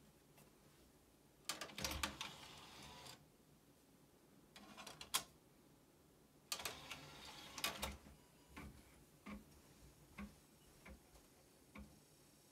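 DVD player loading a disc: the tray motor runs twice as the tray slides out and back in, with clacks between as the disc is set on the tray. Then a run of single light ticks as the drive spins up and reads the disc.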